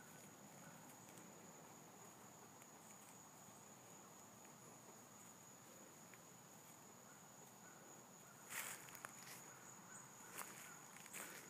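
Near silence with a faint, steady, high insect trill, like a cricket's. From about eight and a half seconds in come a few footsteps crunching on dry leaf litter.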